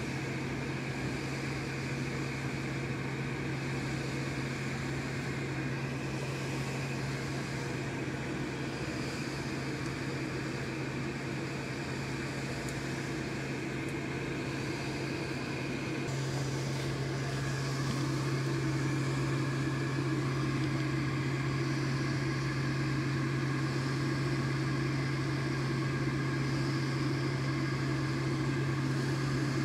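Steady hum of an electric fan or blower motor, getting a little louder about halfway through.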